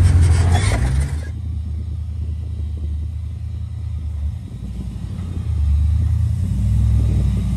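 Off-road rock crawler's engine running at low speed as it crawls up rock, a steady low rumble that drops back after about a second and swells again toward the end.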